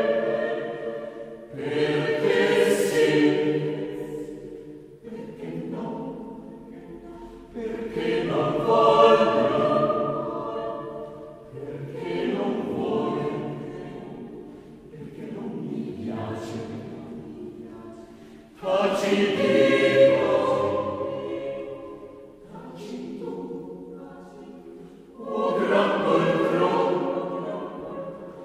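Background choral music: voices singing in long swelling phrases, each a few seconds long.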